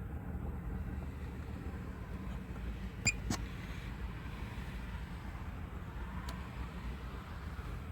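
Strong gusty wind buffeting the microphone: a steady low rumble, with two sharp clicks about three seconds in.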